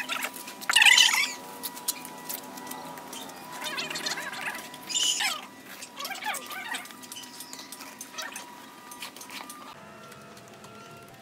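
Steel trowel and hand float scraping and rubbing over wet cement mortar in irregular bursts, loudest about a second in, easing to quieter rubbing in the second half.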